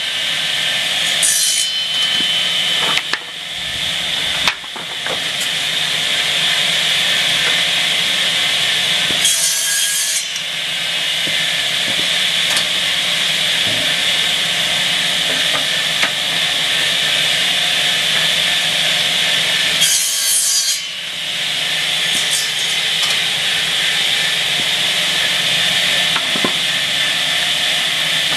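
Double-head circular cutting saw for pallet stringers running with a steady high whine and a low hum. Brief harsher, hissier bursts come near the start, about ten seconds in and about twenty seconds in, as the twin blades cut through the wooden stringer ends.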